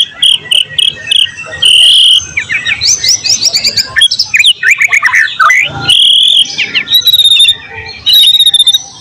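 White-rumped shama (murai batu) singing loudly and continuously, a varied song of short high trills and rapid quick sweeping notes.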